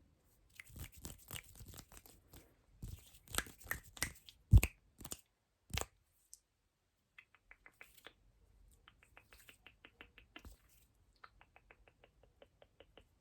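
ASMR mouth sounds close to the microphone: irregular wet clicks and smacks, one much louder pop about four and a half seconds in, then fast trains of small, crisp clicks at several per second.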